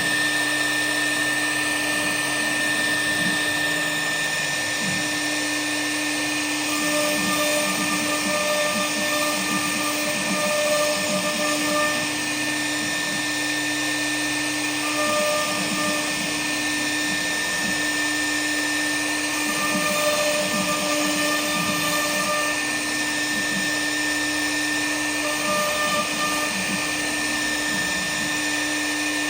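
K1-1325 CNC router running, with a steady spindle whine over a broad hiss. A second, lower tone switches on and off several times, lasting a second or more each time.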